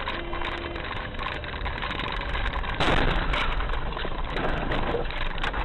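Car driving on a snow-covered road, heard through a dash cam microphone inside the cabin: steady engine and road noise, with a louder rush of noise about three seconds in.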